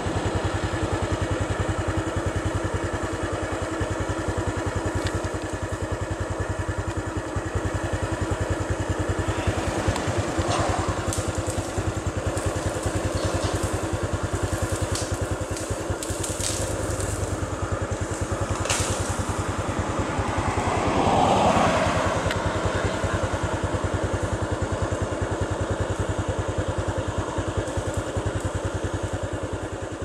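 A motor vehicle's engine running steadily at idle with an even throb, swelling louder with a rise and fall in pitch about two-thirds of the way through. A few sharp clicks sound in the middle.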